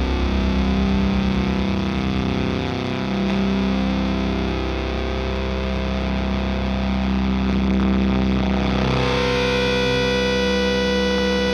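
Heavily distorted electric guitars in a black-metal/shoegaze recording, a dense wall of sound. About nine seconds in, it settles into sustained ringing tones.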